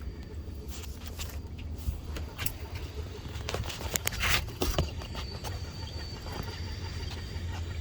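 Steady low hum of the running air conditioner's indoor air handler, with scattered light knocks and rustles from handling near the water-filled drip pan.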